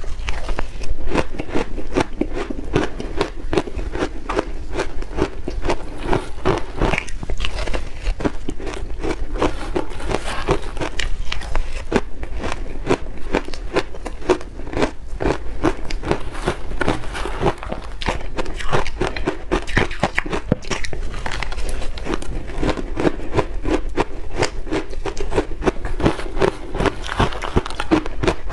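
Close-miked crunching and chewing of shaved ice coated in matcha powder, a dense, continuous run of quick crunches.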